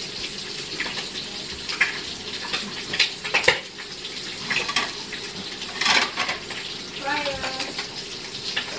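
Food sizzling in a frying pan with a steady hiss, while a metal utensil clinks and scrapes against the pan and dishes several times.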